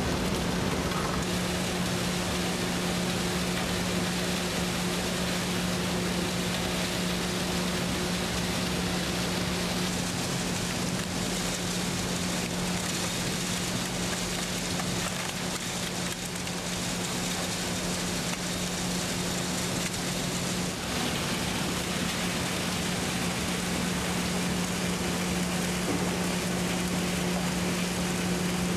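Glass recycling plant machinery running: a steady low hum under a continuous even noise of material moving through the plant. The mix shifts slightly about ten and twenty seconds in.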